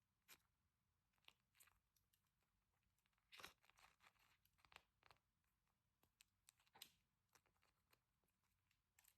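Wax coating on a squishy stress toy cracking as it is squeezed: scattered faint crackles, with a denser burst of crackling about three and a half seconds in and another sharp crack near seven seconds.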